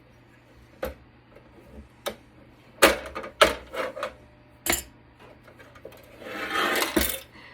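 Sharp clicks and knocks of hand tools and loose parts on the metal chassis of a Cisco Catalyst network switch being dismantled, followed by a scraping rub that swells near the end and stops with a loud knock.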